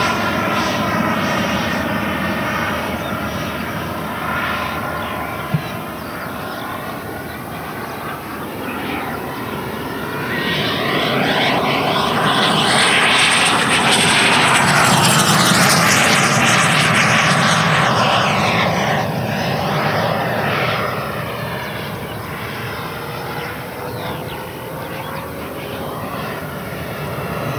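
Black Horse Viper XL RC jet's 100 mm WeMoTec Midi EVO electric ducted fan in flight: a steady jet-like rushing whine that swells to its loudest in a low pass about halfway through, then fades as the model climbs away.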